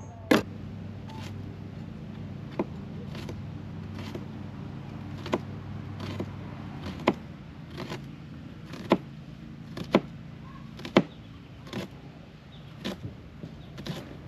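Chef's knife slicing garlic cloves on a plastic cutting board, its blade striking the board in single sharp knocks about once a second, over a steady low hum.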